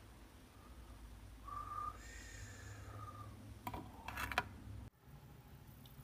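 A faint, thin whistle-like tone lasting about two and a half seconds, then a few light clicks about four seconds in as coffee grounds are scooped with a plastic scoop.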